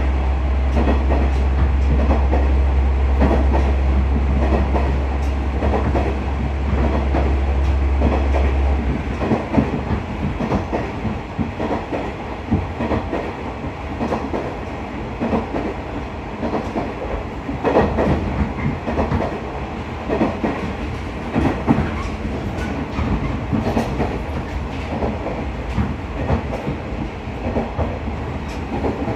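In-cabin running sound of a JR KiHa 110 series diesel railcar: the engine's steady low drone stops about nine seconds in, leaving the wheels clicking over rail joints and the car rumbling along the track.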